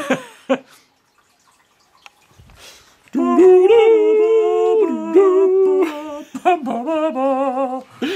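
A person humming a slow tune in long held notes that step up and down, starting about three seconds in and wavering with vibrato near the end.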